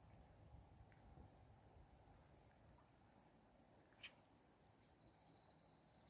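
Near silence: faint outdoor ambience with a low hiss, a single click about four seconds in, and a faint high trill that starts around the middle and turns pulsing near the end.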